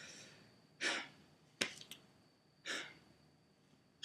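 A man breathing audibly in a pause, two breaths close to two seconds apart, with a sharp click and a few faint ticks between them.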